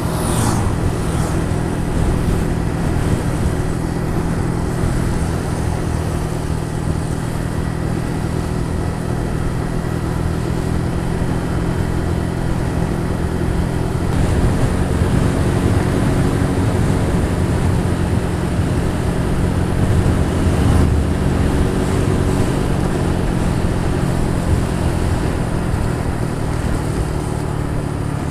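Honda Pop 110i's small single-cylinder four-stroke engine running steadily while riding, with wind and road noise; the engine note shifts about halfway through.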